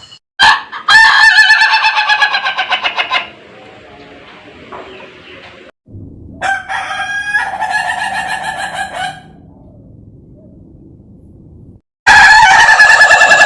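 Ayam Ketawa (laughing chicken) rooster crowing its long, rapidly stuttering crow that sounds like laughter, three times: about half a second in, again about six seconds in, and a third starting abruptly near the end.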